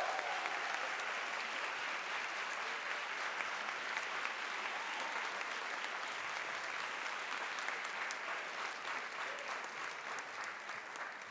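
Large audience applauding steadily in an auditorium, a dense patter of many hands clapping that dies away near the end.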